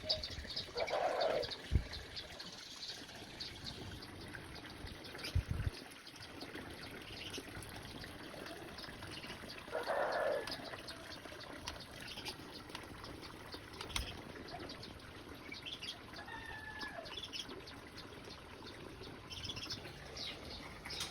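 White-rumped shama and chick at a feeding: two short raspy bursts, about a second in and again about ten seconds in, over faint scattered chirps and high ticks, with a few dull knocks.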